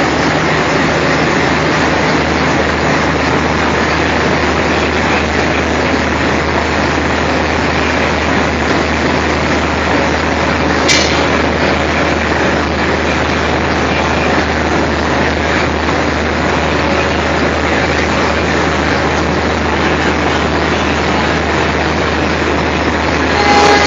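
G-scale model trains running on their track: a steady rumble of wheels and motors with a low hum underneath. There is a sharp click about eleven seconds in and a brief louder burst near the end.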